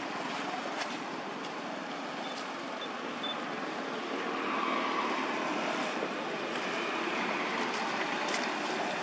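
Steady rushing background noise, with a few faint clicks, growing a little louder about halfway through.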